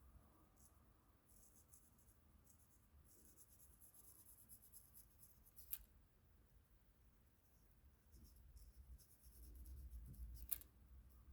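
Faint scratching of coloring strokes on paper, coming and going in runs of strokes, with two sharp clicks: one about halfway through and a louder one near the end.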